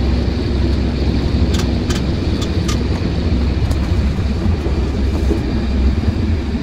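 Truck's engine and road noise heard from inside the cab while driving, a steady low rumble. A few short, light clicks come between about one and a half and four seconds in.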